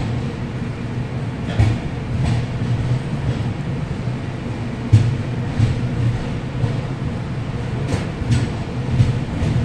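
Passenger train running slowly, heard from on board: a steady low rumble, with the wheels clicking over rail joints in pairs about every three seconds.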